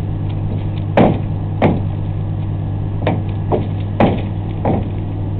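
A long board in a pickup bed knocking against the truck six times at uneven intervals as it is rocked up and down in its tie-down straps. A steady low hum runs underneath.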